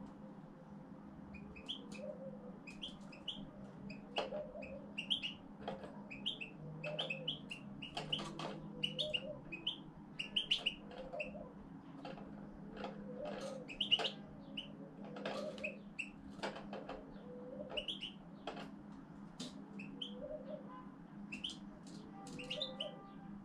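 European goldfinch chirping and twittering in short repeated phrases, about one or two a second, over a steady low hum.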